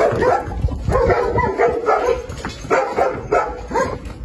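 Repeated barking and yelping calls, several a second at times, with one longer drawn-out call about a second in.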